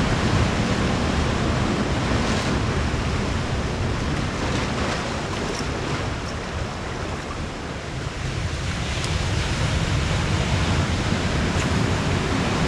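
Ocean surf breaking and washing over a rocky cobble shore: a steady rush that eases a little in the middle and swells again near the end.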